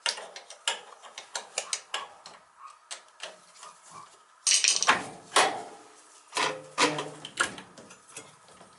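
Metal tools and oil burner parts clicking and clanking as they are handled during a repair, with a louder scrape about halfway through.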